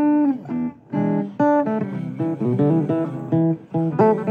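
A guitar playing a blues tune in a run of quick plucked notes.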